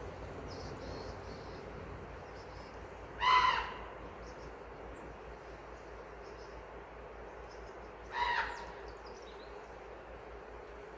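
A large bird calls twice, short ringing calls about five seconds apart, over a steady rushing stream, with faint high chirps of small birds in between.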